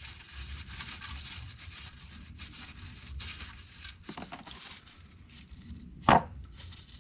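Engine oil pouring from the drain hole into a drain pan, a steady splashing hiss, with a sharp knock about six seconds in.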